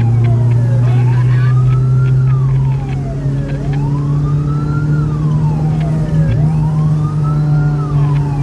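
Electronic emergency siren in wail mode on a fire brigade response vehicle, heard from inside its cab. It slides slowly up and down in pitch, about three rises and falls, over the steady drone of the vehicle's engine.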